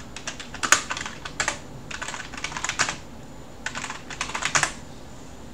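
Typing on a computer keyboard in three quick bursts of key clicks separated by short pauses, stopping a little under a second before the end.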